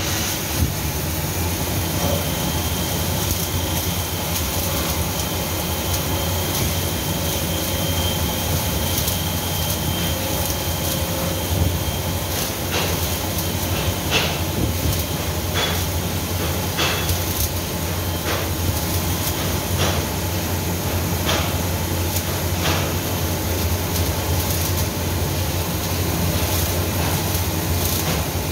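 CNC lathe running and machining a steel hydraulic jack sleeve under flood coolant: a steady low machine hum with an even hiss of coolant spray. A faint high whine runs from about two seconds in until about twelve seconds in, and scattered sharp ticks come through.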